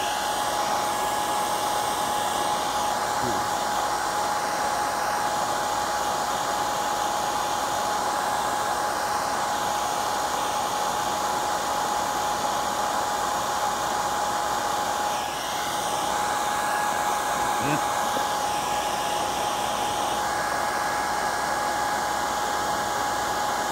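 Handheld hair dryer running steadily: a loud, even rush of air with a constant whine over it.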